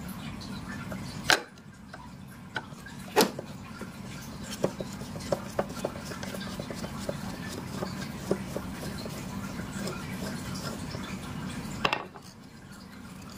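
Phillips screwdriver turning screws out of a car side mirror's plastic housing: small light ticks and scrapes as the screws turn, with three sharp plastic clicks, over a steady low hum.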